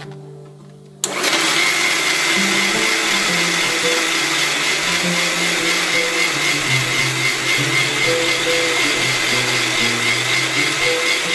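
Electric spice grinder switched on about a second in, its motor running loud and steady with a high whine as it blends ground sesame seeds and olive oil into a tahini paste.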